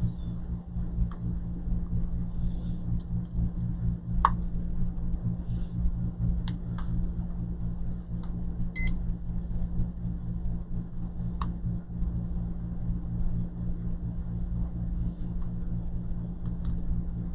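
Steady low electrical hum with a few light clicks and taps of small tools scattered through it.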